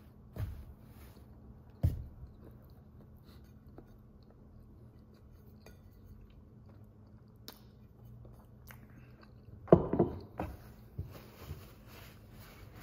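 A person chewing a mouthful of cheeseburger slider with the mouth closed. Two dull thumps come in the first two seconds, and a louder cluster of knocks and handling noise about ten seconds in.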